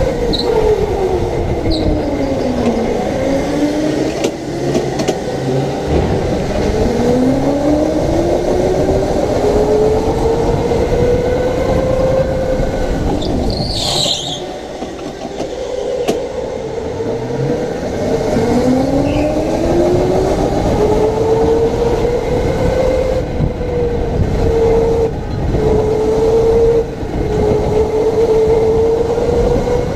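Electric go-kart motor whining, its pitch falling as the kart slows into corners and rising again as it speeds up, several times over, with rumbling tyre and chassis noise underneath. A brief high squeal about halfway through.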